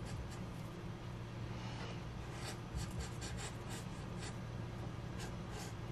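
Black felt-tip marker scratching across brown paper in short strokes, several quick ones close together about two to three and a half seconds in, over a low steady hum.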